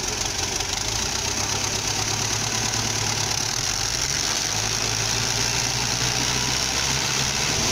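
FIAT 640 tractor's four-cylinder diesel engine running steadily, hitched to a loaded sugarcane trolley stuck in mud, growing slightly louder near the end.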